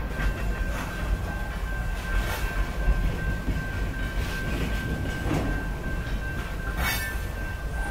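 Loaded freight cars of a CSX train rolling past: a steady low rumble with wheels clacking over rail joints every second or two, and a thin steady high tone over it.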